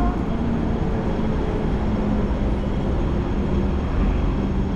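City street traffic noise: a steady low engine rumble with a faint continuous hum.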